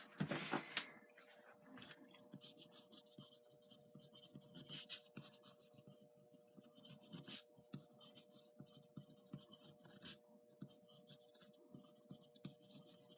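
Pencil scratching on foam board in short, faint strokes as lines are drawn out, over a faint steady hum.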